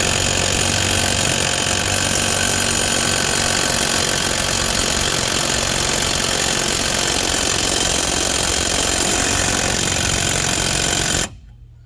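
A power tool running steadily at full speed, then cutting off abruptly near the end.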